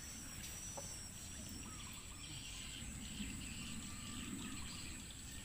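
Faint outdoor ambience: a steady high-pitched insect drone, with a few short bird chirps near the start and a low rumble underneath.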